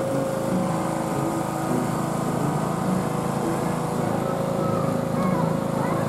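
Riding lawn mower's engine running steadily.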